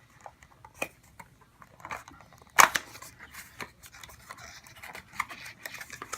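Box packaging being handled and pried at: scattered light clicks and rustles, with one sharp, loud snap about two and a half seconds in.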